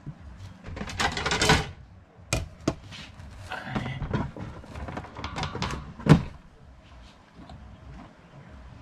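Handling noise of objects being moved and set down: a scraping rustle about a second in, then a series of irregular knocks and clatter, the sharpest about six seconds in.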